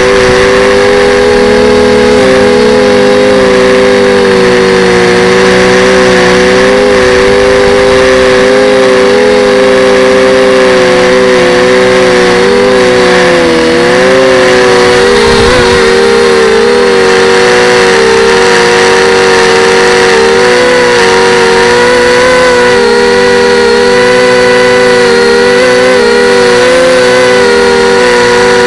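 Multirotor FPV drone's motors and propellers whining loudly, a steady pair of tones that wobble up and down in pitch as the throttle changes, with a brief dip about halfway through.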